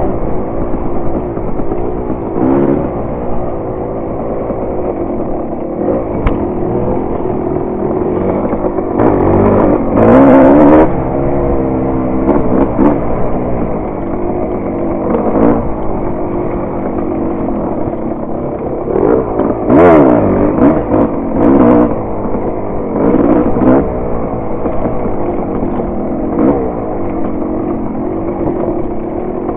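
Dirt bike engine revving up and down continuously while riding over rough ground, with clatter and knocks from the bike. The hardest bursts of throttle come about ten seconds in and again about twenty seconds in.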